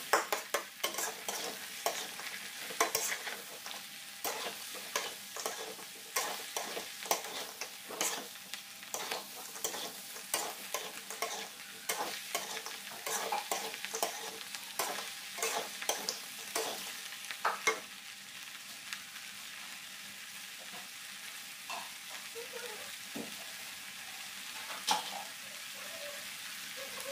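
Metal spatula scraping and knocking against a wok as eggplant and green chilies are stir-fried, over a steady frying sizzle. The stirring stops about two-thirds of the way through, leaving the sizzle, with one more knock near the end.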